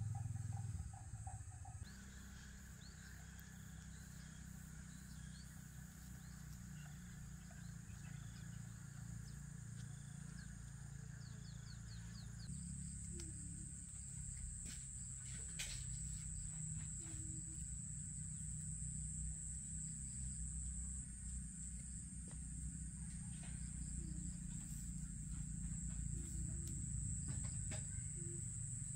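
Steady high-pitched insect drone that grows stronger about twelve seconds in, over a low rumble, with a few faint clicks.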